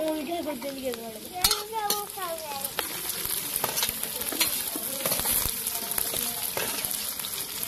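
Chopped onions ladled from a steel plate into hot oil in a black iron kadhai, the sizzling growing louder about three seconds in and holding steady. A few sharp clinks of the steel ladle against the plate come in the first two seconds.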